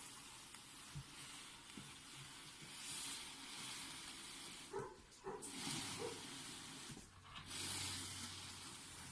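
Packaging rustling and crinkling as it is handled, in uneven swells of hiss-like noise, with a few light knocks about five seconds in.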